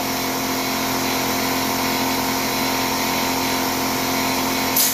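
Air compressor running with a steady hum. A short hiss comes just before the end.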